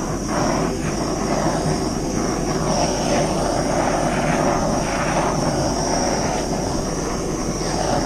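Handheld torch flame hissing steadily as it is passed back and forth over wet acrylic pour paint.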